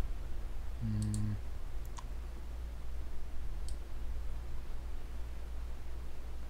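A few sharp computer mouse clicks, spaced about a second or more apart, over a steady low hum.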